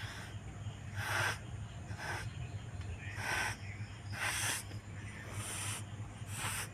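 A cat hissing in short bursts, about once a second, seven times: a defensive warning hiss. A steady low hum runs underneath.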